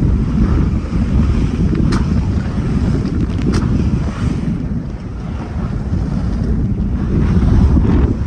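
Strong wind buffeting the microphone on the deck of a Contessa 26 sailboat in rough seas, with waves rushing past the hull. Two sharp slaps of water or spray stand out about two and three and a half seconds in.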